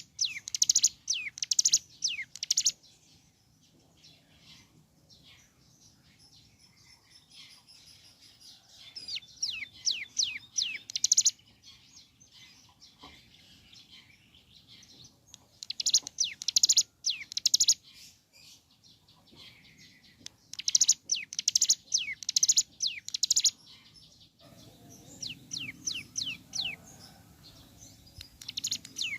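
Ciblek gunung (hill prinia) singing: phrases of rapid, high, falling notes lasting two to three seconds each, separated by pauses of several seconds.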